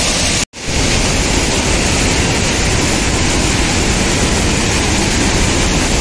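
Steady rushing of a large waterfall, with a brief dropout to silence about half a second in.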